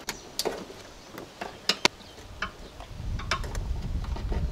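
Brittle plastic retainer clips clicking and snapping as they are pried out of a car's hood insulation liner: a run of sharp separate clicks, the loudest two close together near the middle. A low rumble joins about three seconds in.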